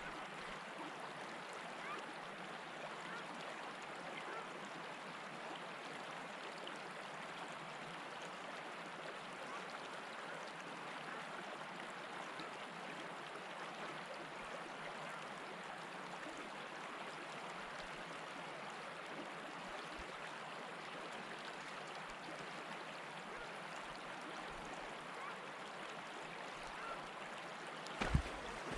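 Steady rush of water, an even, unbroken wash. A sudden low bump and rumble comes right at the end.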